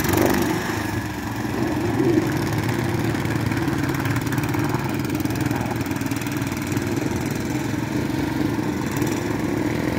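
Small long-tail outboard motor on a wooden boat, running steadily as it drives the boat away through the water.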